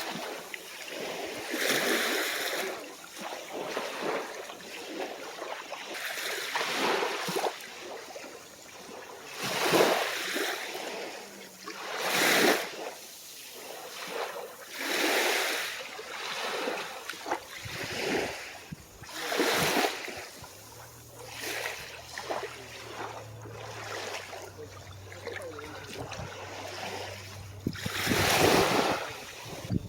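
Calm ocean waves washing onto the beach, each wash swelling and fading every few seconds.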